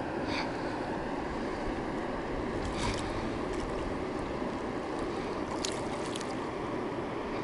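Steady rushing of river water, with a few brief sharp sounds standing out over it.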